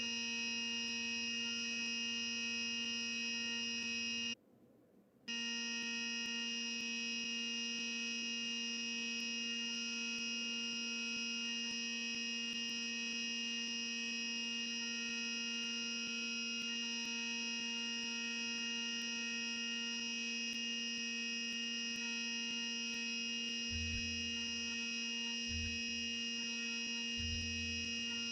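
CNC milling machine running with a small 3/32 end mill cutting brass, heard as a steady whine of several constant tones from the spindle and drives. The sound cuts out for about a second near the start, and a few low thumps come near the end.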